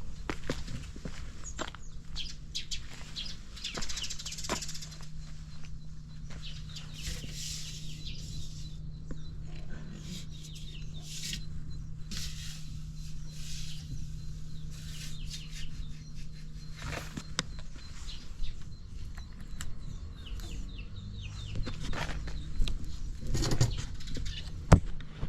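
Suzuki Volty's single-cylinder four-stroke engine running at idle, with a steady beat and light mechanical ticking, which the seller presents as free of abnormal noise. It gets louder and more uneven in the last few seconds, with a sharp knock near the end.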